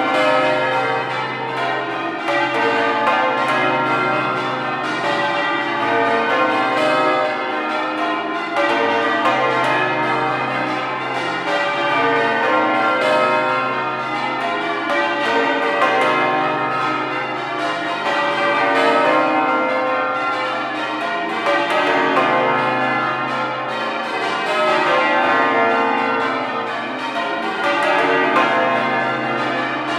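Exeter Cathedral's heavy ring of twelve church bells, rung in full-circle change ringing: a continuous, dense stream of bell strokes with overlapping tones that hang on, the loudness swelling and easing every few seconds as the rows go round.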